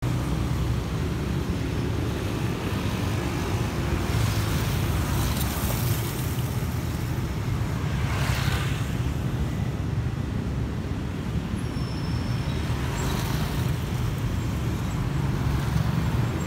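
Light street traffic at a road junction: a steady low rumble, with motorcycles and cars passing by. One pass stands out about eight seconds in.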